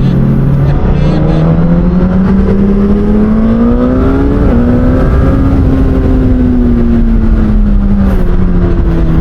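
2023 Suzuki GSX-S1000's inline-four through an SC-Project exhaust, riding under power: the engine note climbs steadily for about four seconds, then slowly drops off as the throttle eases, over wind rush.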